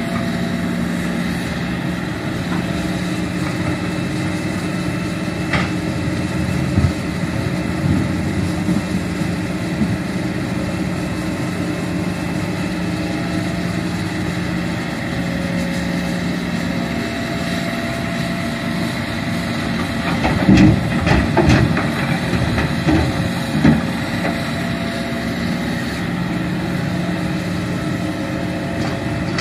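Hitachi Zaxis 210F hydraulic excavator's diesel engine running steadily while it works, loading a dump truck. A cluster of louder knocks and thumps comes about two-thirds of the way through.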